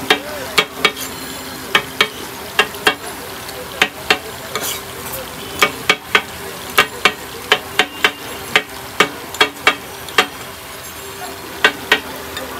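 Chicken pieces frying in oil on a large flat tawa griddle, sizzling steadily, while a metal spatula clanks and scrapes against the griddle in irregular sharp strokes, about one or two a second, with a short pause near the end.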